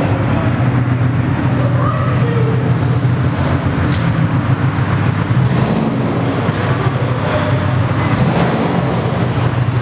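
Subaru WRX turbocharged flat-four engines idling and running at walking pace, a steady low rumble.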